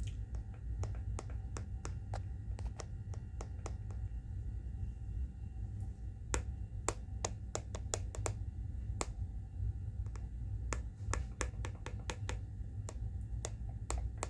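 ASMR clicks and ticks: short sharp clicks at an irregular pace, single or in quick pairs, sparser early and denser and louder from about six seconds in. A steady low hum lies under them.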